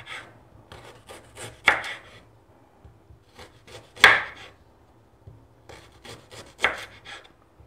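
Knife slicing fresh ginger root thinly on a cutting board: irregular runs of light cuts, with a louder knock of the blade about every two and a half seconds.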